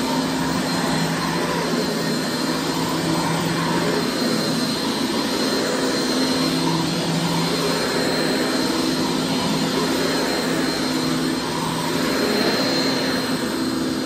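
Dual-motor Riccar upright vacuum cleaner running steadily as it is pushed over carpet: a continuous motor whine with a thin high-pitched tone on top.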